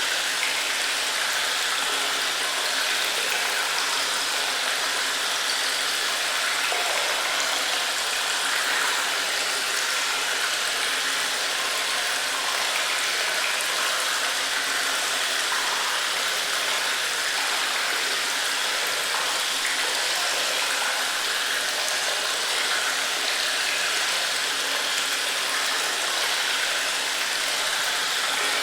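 Cave ambience of running water: a steady, even rush with no single drip or other event standing out.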